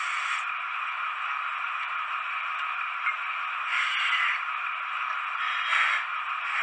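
H0-scale Märklin model BR 212 diesel locomotive running slowly on three-rail track: a steady rattling, rushing wheel-and-motor noise, with brief louder scrapes about four and six seconds in.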